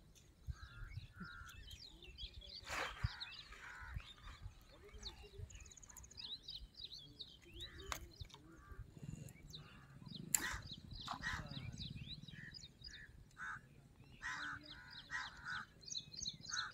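Birds chirping and crows cawing, repeated caws mostly in the second half, with a few sharp knocks as a caught tilapia is pulled ashore and handled.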